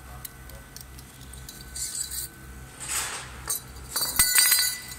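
Metal printhead cover sleeve of a Videojet inkjet printer being slid off by hand: soft scraping, then sharp metallic clinking with a brief ringing near the end.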